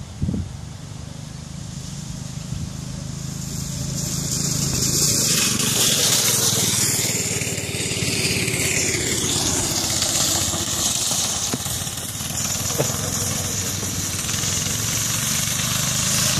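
Honda 160 cc single-cylinder engine of a homemade go-kart running steadily, growing louder over the first six seconds as the kart comes closer.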